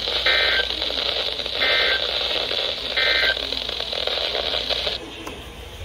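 Emergency Alert System end-of-message data tones from a weather radio: three short digital squawks about a second and a half apart, marking the end of the warning, over steady radio static. The static drops suddenly about five seconds in.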